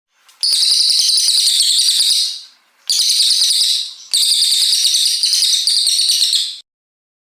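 Cililin coklat songbird singing three long bursts of rapid, high-pitched trilling song, the second one shorter.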